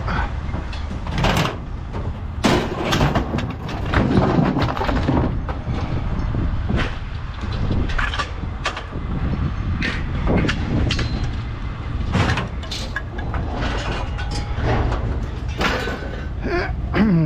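Scrap metal clanking and banging as it is handled and dropped, irregular sharp knocks over a steady low engine hum.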